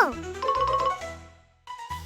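Background music with a steady beat and a short chiming figure, dropping out briefly near the end before starting again.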